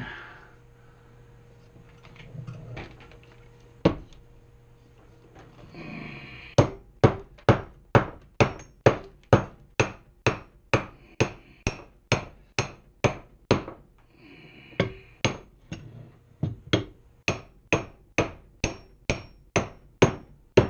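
Hammer blows seating the lower steering bearing on a trike's front forks: one blow, then after a couple of seconds a steady run of strikes about two to three a second, with a short break past the middle. The bearing is being driven on tight.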